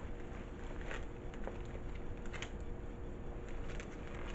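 Faint scattered clicks and taps of handling, over a steady low hum and room hiss.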